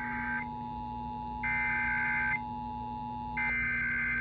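Emergency Alert System SAME data bursts: three harsh digital warbles, each about a second long and about a second apart, typical of an EAS header. Under them runs a steady two-tone attention signal that cuts off about three and a half seconds in, over a low steady hum.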